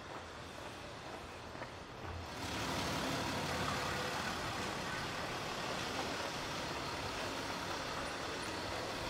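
Land Rover Discovery SUV's engine running a few metres ahead in a narrow lane: a steady engine and exhaust noise that comes up suddenly about two seconds in and holds steady as the SUV creeps along.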